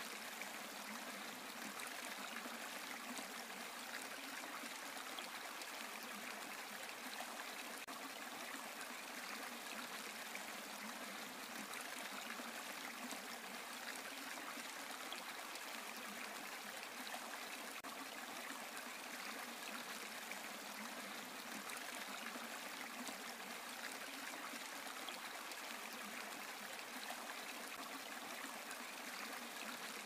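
A small stream of water falling steadily into a pool, a constant splashing trickle with no change.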